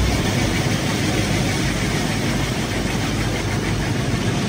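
Automatic car wash heard from inside the car's cabin: a steady, dense rush of water and foam spraying over the windshield and body.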